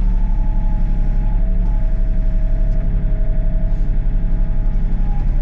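Excavator's diesel engine running steadily under digging load, with higher whining tones that come and go as the boom, dipper and bucket are worked.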